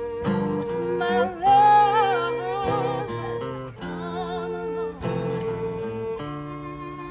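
Live band music: a melody with strong vibrato rises over sustained chords and plucked guitar, fading back to the accompaniment about three seconds in and returning briefly around four seconds.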